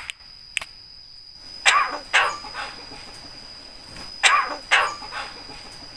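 Javan myna (jalak kebo) giving two pairs of short, harsh calls, the second pair about two and a half seconds after the first.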